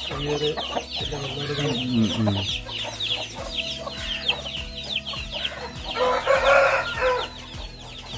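Chickens clucking and calling over a continuous rapid high peeping, with a louder harsh call about six seconds in.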